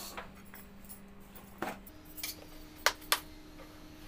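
Tabletop handling sounds as a plastic jar is picked up beside an aluminium pot: a soft knock about one and a half seconds in, then two sharp clicks close together about three seconds in.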